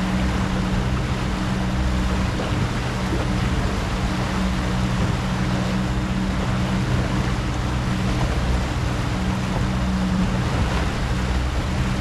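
Outboard motor running steadily at trolling speed, a constant low hum under the rushing wash of its wake.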